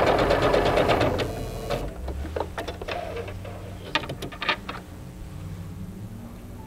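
Singer 7466 computerized sewing machine running a zigzag stitch, its needle going in a fast steady rhythm, then stopping between one and two seconds in. A few clicks and fabric rustles follow as the denim is drawn out from under the presser foot.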